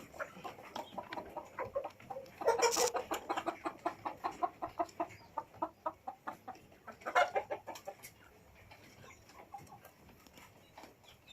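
A flock of kienyeji (indigenous free-range) chickens clucking, with many short repeated calls overlapping and two louder flurries of clucking, one about two and a half seconds in and one about seven seconds in.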